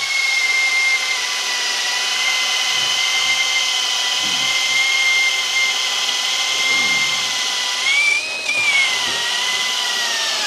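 18V cordless drill in its high-speed gear, driving a wood auger bit through a thick wooden block. The motor whine holds steady, rises briefly about eight seconds in, then drops in pitch toward the end as the bit bites and grinds through the wood.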